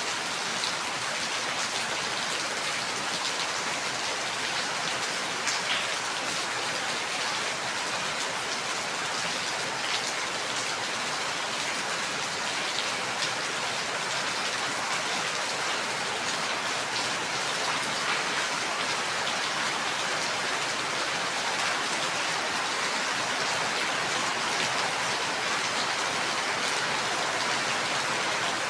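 Steady rain falling, an even hiss with scattered drop ticks on a surface.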